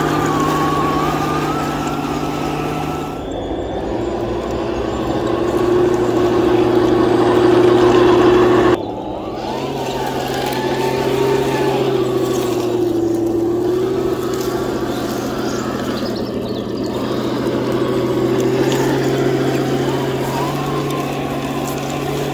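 Heng Long Tiger 1 RC tank driving, its built-in sound unit playing a simulated tank-engine drone over the running of its motors and tracks. The drone swells for a few seconds, then drops back suddenly about nine seconds in as the throttle eases, and runs on at a lower level.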